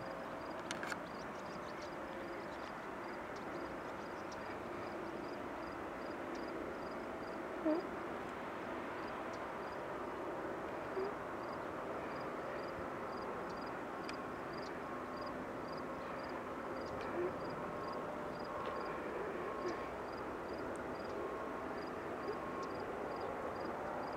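Faint, steady distant jet noise of an airliner on approach and landing. A faint high chirp repeats about twice a second over it.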